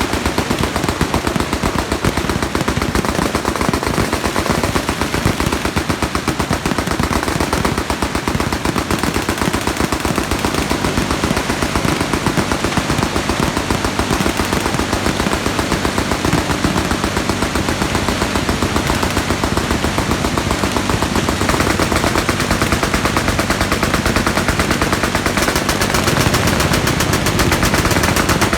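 Machine guns firing without a break: a dense, continuous rattle of overlapping automatic fire.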